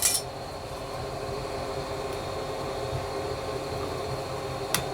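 Steady rushing noise of the blacksmith's forge running, with a single sharp hammer tap on steel near the end.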